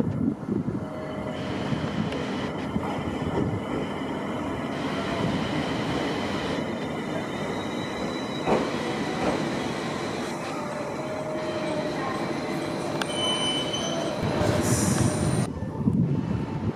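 JR East E721 series electric multiple unit running into the station, a steady rumble of the train with thin high squealing tones from the wheels on the rails.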